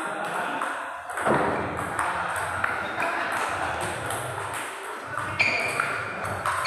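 Table tennis ball being hit back and forth in a rally: sharp ticks as it strikes the paddles and bounces on the table, roughly one every half second.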